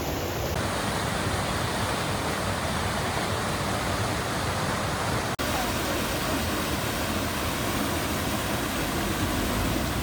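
Steady rushing of a waterfall, with one instant's break about five seconds in.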